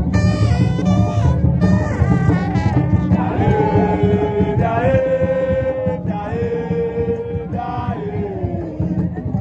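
Borborbor music: a dense, steady drum beat under a melody of long held notes.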